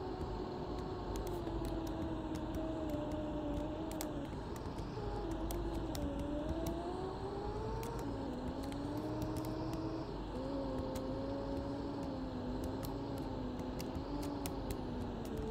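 Mercedes-Benz OC500LE bus running, its drivetrain whine sliding slowly down, then up, then levelling off as road speed changes, over a steady low rumble. Light rattles click throughout.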